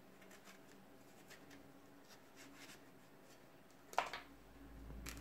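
Kitchen knife cutting raw pumpkin on a plastic cutting board: faint scraping strokes, then two sharp knocks near the end.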